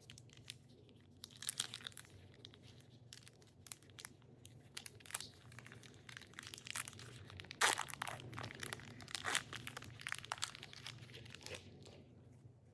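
Foil wrapper of a 2025 Topps Heritage baseball card pack being torn open and crinkled, with irregular crackles and snaps, the loudest about seven and a half seconds in.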